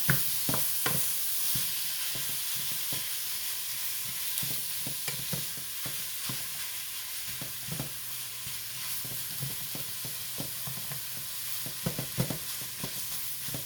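Ground beef with onions and bell pepper sizzling as it browns in a pot, with a utensil stirring it and knocking against the pot now and then.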